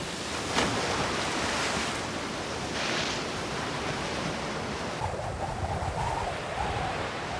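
Sea water surging and splashing, a steady rushing noise; about five seconds in it turns duller.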